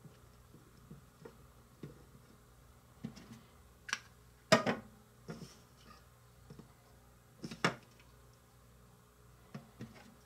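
Scattered light clicks and taps of a plastic toy measuring spoon against small plastic bowls as thyme is measured into it, the loudest about halfway through.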